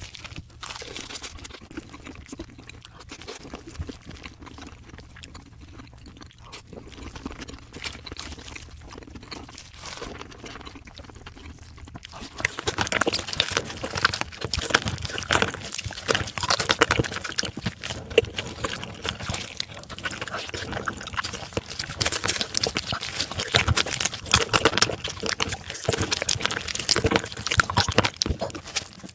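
Close-miked eating of raw marinated crab: wet chewing, sucking and crunching of crab shell. Fairly soft at first, then from about halfway in a louder, denser run of crunches and wet clicks.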